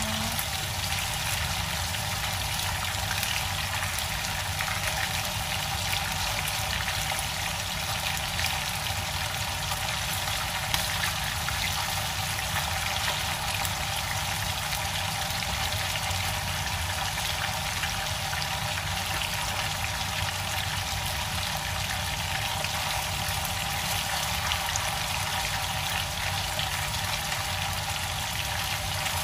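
Fish head frying in oil in a nonstick pan: a steady sizzle with a few small pops.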